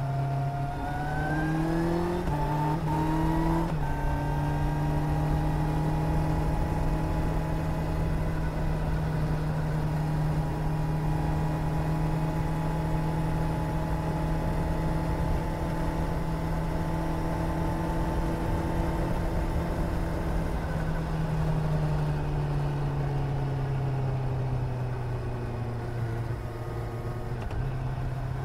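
Suzuki GSR 750's inline-four engine under way, heard from the rider's seat. Revs climb over the first few seconds with a couple of quick steps in pitch, hold steady at cruising speed, then fall gradually as the bike slows about three-quarters of the way through, picking up again right at the end.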